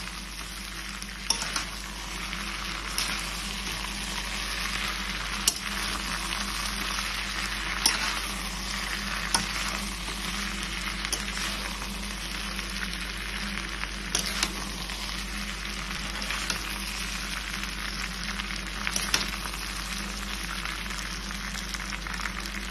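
Chilli chicken sizzling in a metal wok while a metal spatula stirs and turns it, with a steady frying hiss and now and then a sharp click or scrape of the spatula against the pan.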